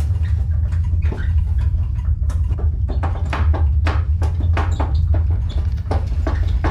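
Earthquake sound effect: a deep, continuous rumble with rapid, irregular rattling and clattering of shaken household objects, the rattles growing denser about three seconds in.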